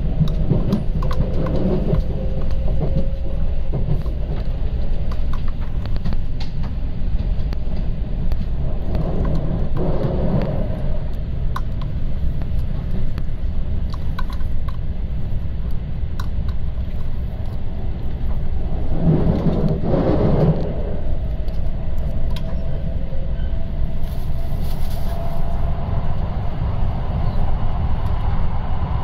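Running noise of an E4 series MAX Shinkansen at speed, heard from inside a lower-deck seat: a steady low rumble that swells louder three times, about a second in, about ten seconds in and about twenty seconds in.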